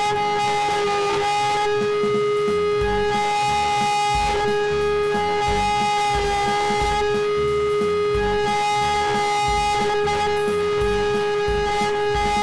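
CNC router spindle whining steadily as the end mill cuts acacia wood, with guitar background music underneath.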